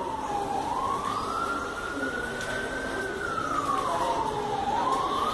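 A wailing siren, its single tone gliding slowly up and down: it dips about half a second in, climbs for a couple of seconds, falls again about three seconds in and starts rising near the end.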